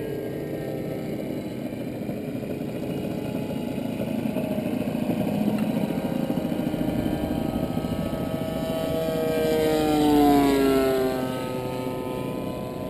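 Radio-controlled model airplane engines running steadily; about ten seconds in, one engine grows louder and its pitch drops as it sweeps past.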